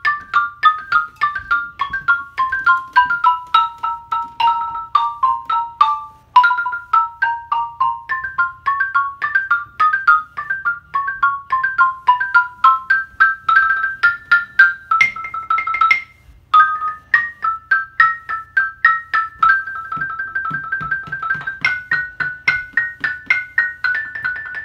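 Xylophone played with two mallets in its upper register: a quick ragtime exercise of single struck notes running up and down. It breaks off briefly about six seconds in and again around sixteen seconds, then turns into fast repeated strokes on one note near the end.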